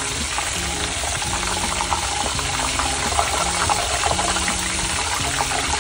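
Chicken nuggets deep-frying in hot oil in a stainless steel pot: a dense, steady sizzle full of fine crackles, as a metal spoon stirs them and lifts them out of the oil.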